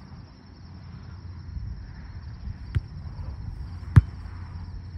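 A beach volleyball being struck by players' hands and arms: a sharp smack nearly three seconds in, then a louder one about a second later as the ball is passed. A steady high chirring of insects, likely crickets, runs underneath.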